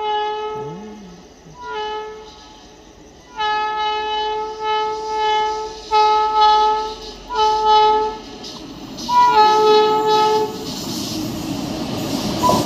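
Horn of an Indian Railways WAP-7 electric locomotive sounding in a series of about six blasts, one of them long, as the train approaches. Near the end the rumble and rush of the oncoming train rises.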